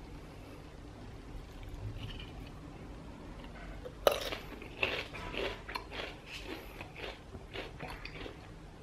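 A person bites into a potato crisp with a sharp crack about four seconds in, then chews it with a string of short crunches.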